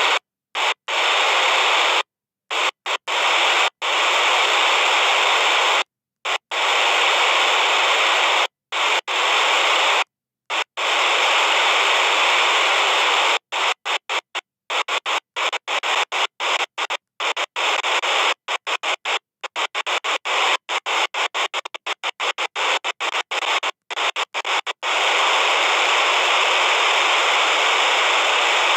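Walkie-talkie radio static: loud hiss keyed on and off, broken by sudden silent gaps, with a fast choppy stretch of short bursts in the middle and long unbroken hiss near the end.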